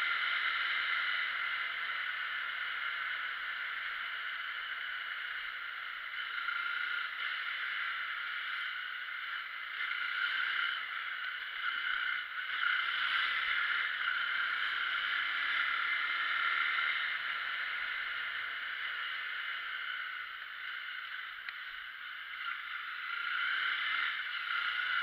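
Steady rushing wind and road noise on a camera mounted on a moving motorcycle, with the engine only faintly heard underneath; the rush eases a little near the end as the bike slows.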